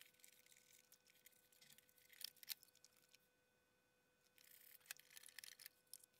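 Near silence, with a few faint clicks about two seconds in and soft handling sounds near the end as the hinged front panel of a rack-mounted PCM digital audio processor is opened.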